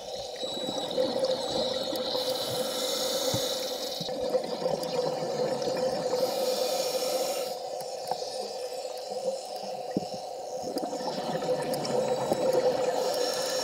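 Underwater ambience picked up by a submerged camera. A steady low hum runs under rushes of hissing noise that come about two seconds in, around six seconds in and again near the end, with scattered small clicks.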